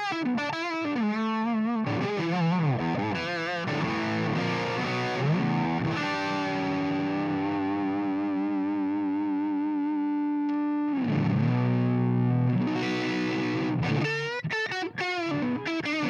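Overdriven electric guitar played through a Carstens Warm Machine 50-watt tube amplifier. It plays picked lead notes with string bends, then a long held note with vibrato from about six to eleven seconds in, then chords and quick picking near the end.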